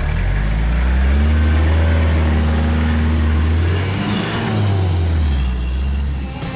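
Toyota Land Cruiser Prado's engine under load as it climbs a steep dirt slope and passes close by. A deep, steady engine note starts at the beginning, rises briefly about four seconds in, and fades near the end as the vehicle moves away.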